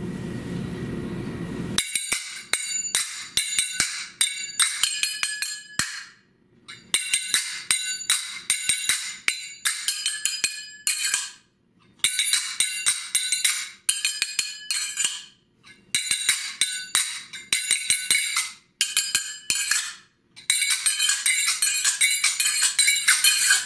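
Egyptian sagat, pairs of brass finger cymbals, played solo in fast rhythmic phrases of bright ringing clinks, with short pauses between phrases. The playing begins about two seconds in. The right- and left-hand cymbals trade phrases back and forth as a dialogue.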